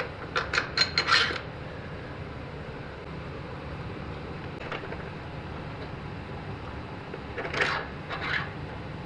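Hand tools and metal suspension-linkage parts clinking as the stock rear linkage of a motorcycle is refitted: a quick run of clinks about a second in, then a short scraping rub near the end.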